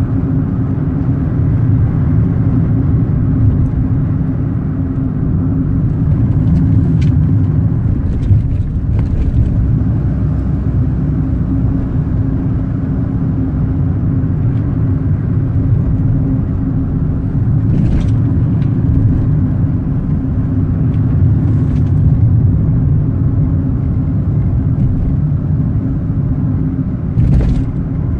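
Car driving along a winding road: steady engine and tyre noise, heavy in the low end, with a constant hum and a few brief clicks.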